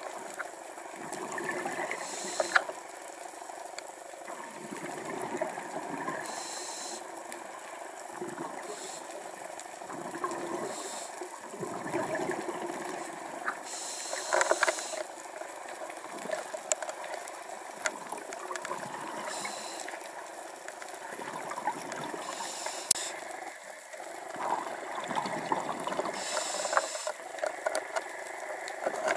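Scuba regulator breathing heard underwater: a hiss of inhaled air and a bubbling exhalation recurring every few seconds, over a constant fine crackling of the water.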